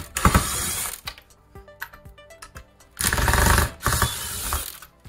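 Small cordless power screwdriver running in two short bursts, about three seconds apart, backing screws out of a plastic tool housing.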